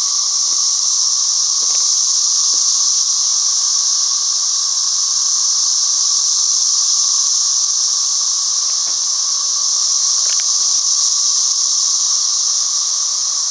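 Loud chorus of many cicadas, a continuous high buzzing drone that holds steady without a break.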